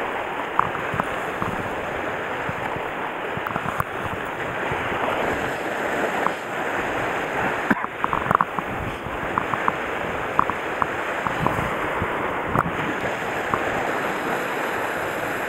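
Steady wash of sea surf and wind at a rocky shoreline, with scattered short clicks.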